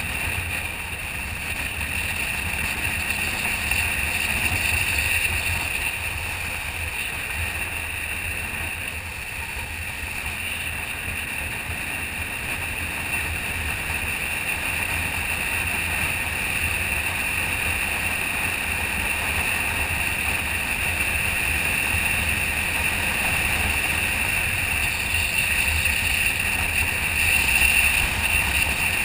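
Motorcycle riding along at steady speed, heard from an onboard camera: a steady rush of wind over the microphone with a low rumble from the bike beneath it.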